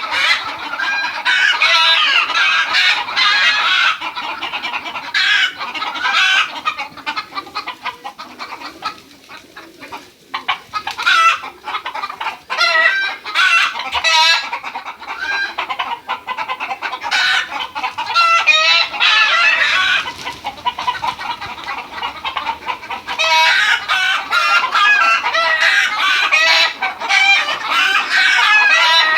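Many chickens in a poultry house clucking and calling over one another in a dense chorus, with a rooster crowing at times. The din thins out for a few seconds in the middle, then swells again near the end.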